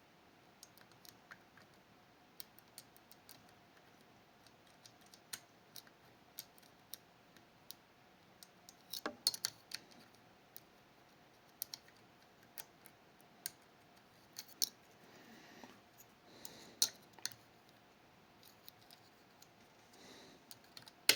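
Lock picks working inside a Fichet 484 lever lock: scattered small metal ticks and clicks as the levers are lifted and tensioned, with a cluster of louder clicks about nine seconds in and faint scraping of the pick now and then.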